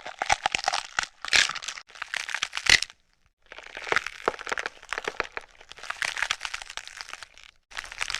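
Bone-cracking sound effect: several runs of dense crackling and crunching separated by brief pauses, with a sharp loud snap a little under three seconds in.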